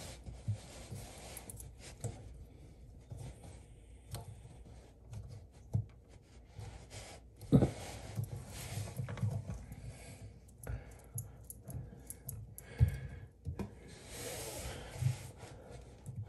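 Quiet handling noise as the coupling nut of a braided supply hose is unscrewed by hand from the threaded shank under a toilet tank: rubbing and small clicks of metal and plastic, with two sharper knocks, one about halfway through and one a few seconds later.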